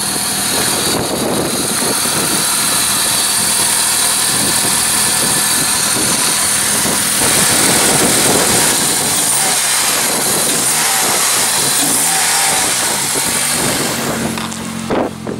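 Honda Civic's 1.7-litre D17 four-cylinder engine running steadily through a newly fitted aftermarket 4-1 exhaust header.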